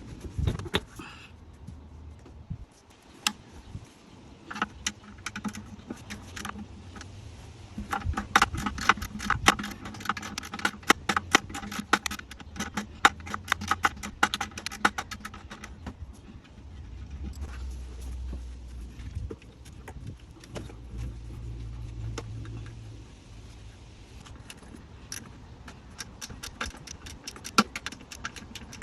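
Hand tools clicking and clinking on metal as engine parts are unbolted, with a dense run of rapid clicks in the middle, over a low background hum.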